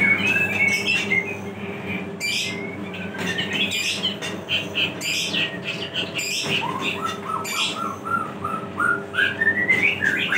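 Birds chirping and calling repeatedly over the steady hum of a mini tempe slicing machine running, its circular stainless blade spinning. In the second half a quick series of short chirps steps upward in pitch.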